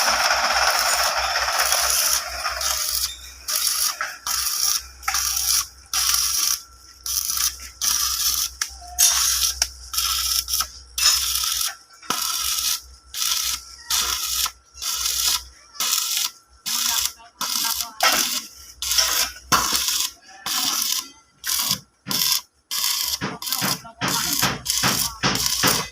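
Electric arc welder crackling as it welds steel: a steady arc for the first couple of seconds, then a long irregular run of short arc bursts, each under half a second, with brief gaps between them.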